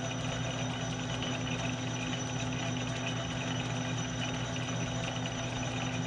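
Metal lathe running steadily during single-point thread cutting, a constant motor and gear hum with a thin high whine.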